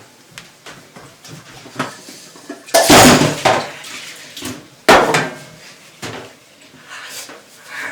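Pots and pans clattering on a gas stove where a pot has boiled over and put out the flame. A loud rush of noise comes about three seconds in, and a sharp clatter about five seconds in, among lighter knocks.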